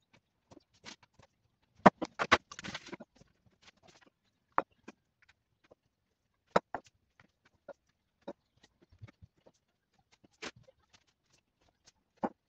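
Irregular light clicks and taps of a metal piping nozzle and fingers against bare metal baking trays as cookie dough is piped out in rows, with a louder clatter and brief scrape about two seconds in.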